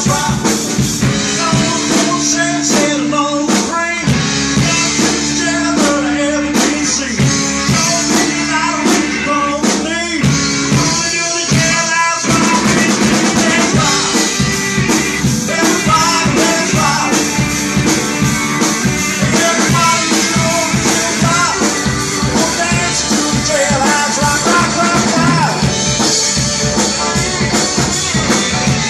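Live rock and roll band playing, with electric guitars, acoustic guitar, bass guitar and drum kit.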